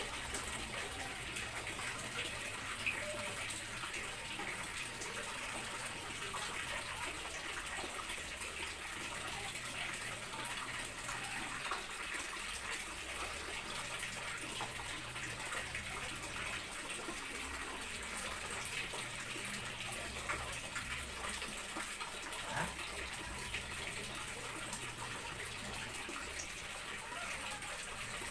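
Water running steadily from a tap into a large plastic drum, an even hiss with a few faint ticks.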